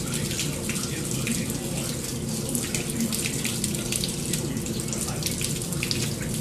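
Commercial front-load washing machines running: steady splashing and running water over a constant machine hum.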